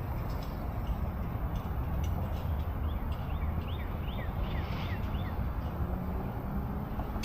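A small bird giving a quick series of short, downward-sliding chirps over a steady low rumble of wind or distant traffic.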